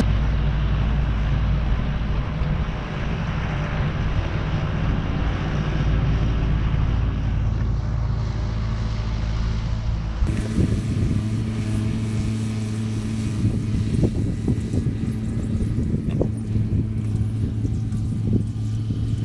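A heavy engine running at a steady pitch. About ten seconds in the sound changes abruptly, and scattered knocks and clanks follow.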